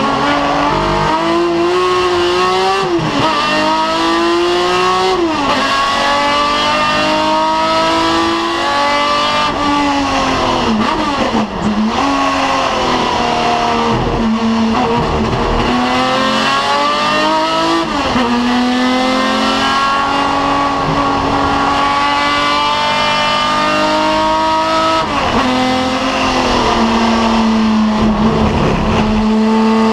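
BMW 3.0 CSL racing car's straight-six engine heard from the cockpit under hard track driving. Its pitch climbs steadily through the revs, then drops sharply at each gear change or braking point, about six times, before climbing again.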